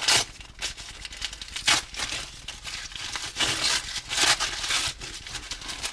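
Adhesive tape being pulled and torn off a tightly wrapped parcel, with crinkling of the wrapping, in irregular scratchy bursts.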